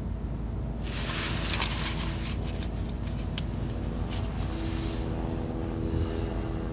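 Car engine idling, heard from inside the cabin as a steady low hum, with rustling of clothes and seatbelt and a few sharp clicks as the driver shifts in his seat.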